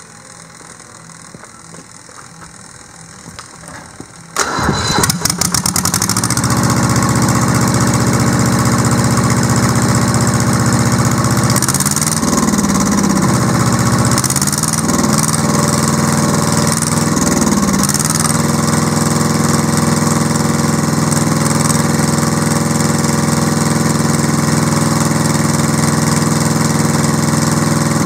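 Deutz F2L511 two-cylinder air-cooled diesel engine starting about four seconds in: a second or two of ragged firing as it catches, then a steady run. Between about twelve and eighteen seconds the engine speed swings three times, and it swings once more near the end.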